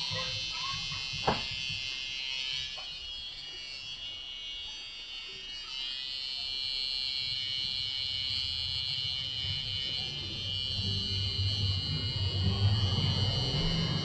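Tattoo machine running on skin, a steady high-pitched buzz. A single sharp click about a second in.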